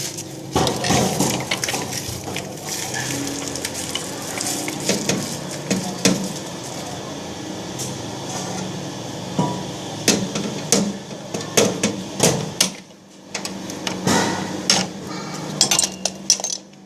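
Irregular clinks and knocks of metal tools and parts being handled, coming thickest in the second half.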